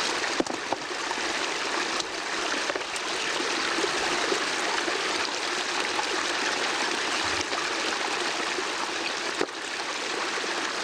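Shallow mountain stream running steadily over rocks, with a few light splashes and knocks as hands lift and turn stones in the water.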